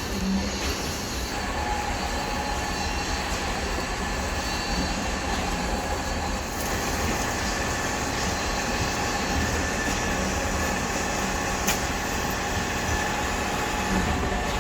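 KCP63 concrete pump truck working: a steady machine din with several high whining tones, and a short low thud every four to five seconds.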